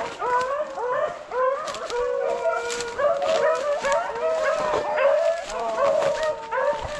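A pack of beagles baying in full cry, several overlapping voices in a continuous chorus: the hounds running hot on a rabbit's trail.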